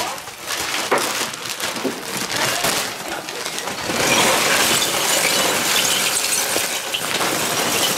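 Lumps of beech charcoal poured from a paper sack into a kettle grill, clattering onto the glowing briquettes and grate in a dense, continuous rattle that starts about halfway through. Before that there are only scattered clicks and knocks.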